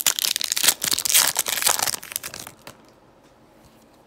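Crinkly foil wrapper of a Panini Prizm basketball card pack being torn open and handled, a dense crackling for about two and a half seconds that then stops.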